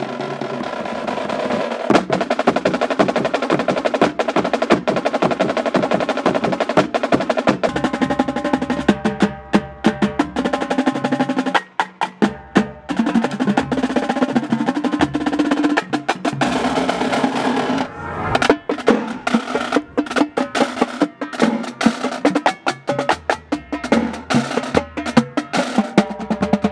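Marching drumline battery (snare drums, tenor drums and bass drums) playing a fast, dense field-show passage of rapid strokes and rolls, with a few short breaks in the playing around the middle.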